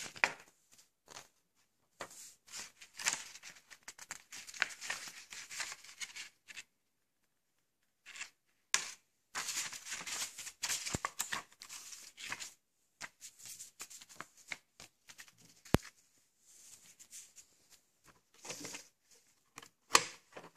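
Paper leaflets rustling and crinkling as they are unfolded and leafed through by hand, in irregular bursts with short pauses and a few sharp clicks.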